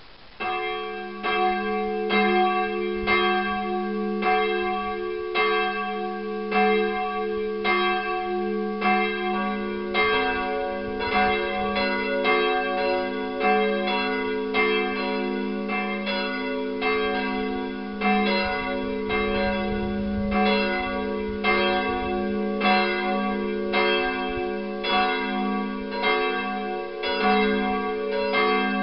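Nineteenth-century cast-steel church bells by the Bochumer Verein, swung and ringing. One bell starts about half a second in and strikes about every second and a quarter. A second, higher-pitched bell joins about nine seconds in.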